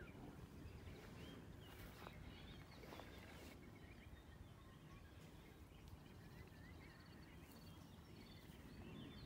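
Near silence: faint outdoor ambience by a lake, with small scattered bird chirps over a low steady rumble.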